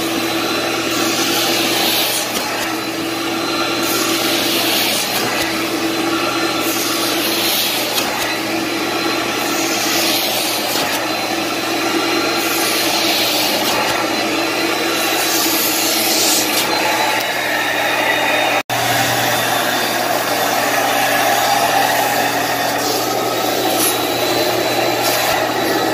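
Hot-water extraction machine's vacuum drawing steadily through an upholstery tool as it is stroked across a fabric sofa cushion. The suction hiss surges with each pass, about every two to three seconds. The sound cuts out for a moment about two-thirds of the way through.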